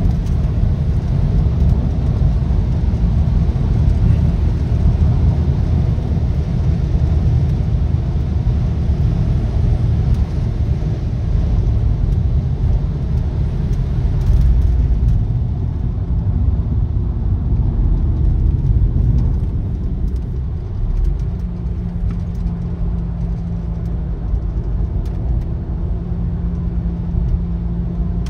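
Audi A6 C5 2.7 V6 biturbo driving at highway speed, heard from inside the cabin: a steady low drone of engine and road noise that eases slightly as the car slows and the revs drop, with a steady hum coming in about two-thirds of the way through.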